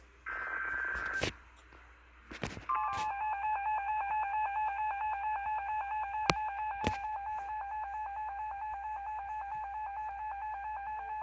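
Emergency Alert System broadcast: a one-second burst of warbling SAME digital header tones, then, about two and a half seconds in, the harsh steady EAS two-tone attention signal starts and keeps sounding. It signals an incoming alert, here a severe thunderstorm warning. A few faint clicks are heard.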